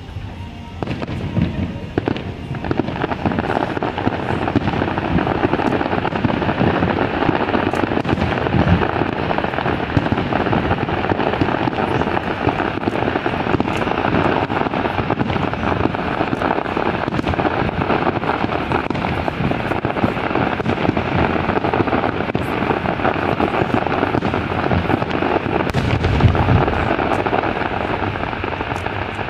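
Fireworks display in a dense, continuous barrage of crackling and popping bursts, with deeper booms about a third of the way in and again near the end.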